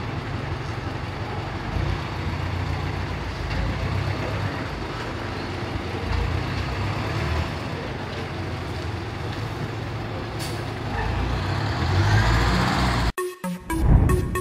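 Volkswagen dump truck's diesel engine running steadily as the truck moves off, with a short hiss of air about ten seconds in and the engine rising just after. Electronic music cuts in suddenly near the end.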